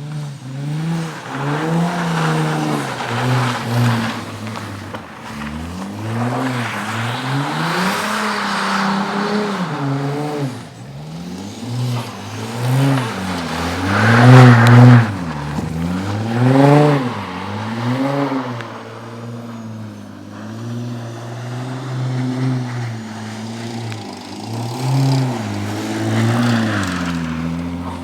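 Audi S4 B5's 2.7-litre twin-turbo V6 revving up and down again and again as the car drifts and spins donuts in snow, the loudest rev about halfway through.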